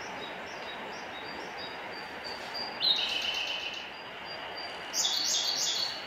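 Male Siberian blue robin singing: a row of soft, high introductory notes leading into a loud, rapid trilled phrase about three seconds in, then soft notes again and a second loud phrase near the end. A steady rushing noise runs underneath.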